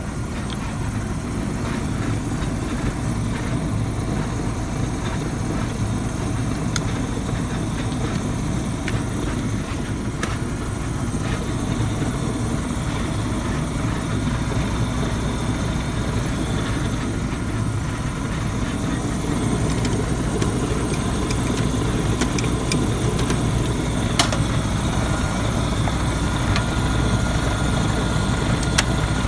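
Waste oil furnace burner running steadily with a low, even rumble of flame and blower. Two or three sharp clicks come in the last few seconds.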